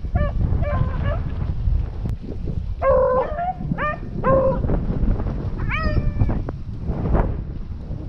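A pack of rabbit hounds baying while they run a rabbit, in repeated short rising yelps with one longer held bay about six seconds in.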